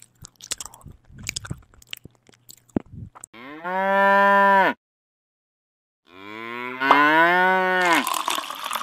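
Crunchy chewing sound effect for about three seconds, then two long cow moos with a short silence between them; the second moo rises in pitch. Near the end, liquid begins pouring and splashing into a bucket.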